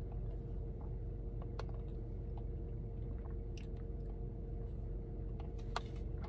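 Quiet chewing and sipping of an icy slushie through a straw, a few faint clicks, over the steady low hum of a car interior.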